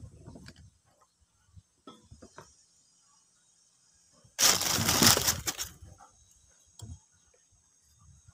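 Parts of a dismantled Makita 9527NB angle grinder, its armature and bearing plate, being handled on a wooden bench: a few light clicks, then a loud scrape lasting over a second around the middle.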